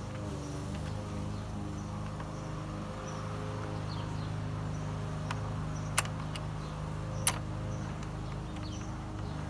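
Two sharp clicks about a second apart as a nut and button-head bolt are fitted to the overflow-tank bracket on a plastic radiator fan shroud, over a steady low hum.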